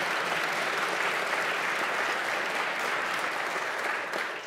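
A large seated audience applauding steadily, then dying away near the end.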